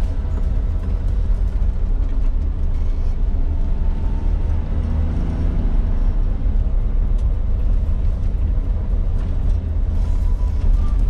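Cabin noise of a 1996 Suzuki Jimny JA22 on the move: a steady low rumble of its small three-cylinder turbo engine and the tyres on the road.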